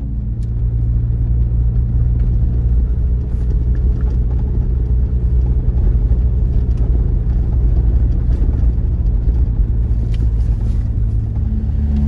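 Jeep driving along a gravel road, heard from inside the cab: a steady low engine and road drone.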